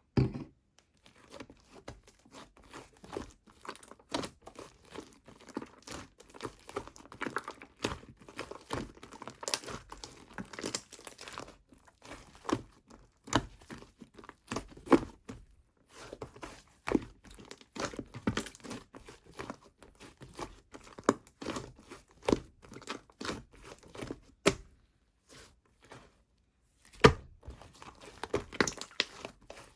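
Hands squeezing, stretching and pressing a blue clay slime, making dense, irregular crackling and sticky tearing clicks, with a few short pauses.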